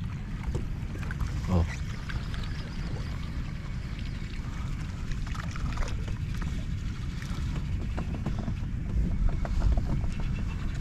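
Steady low rumble of a small fishing boat at sea, with scattered light clicks and knocks on board.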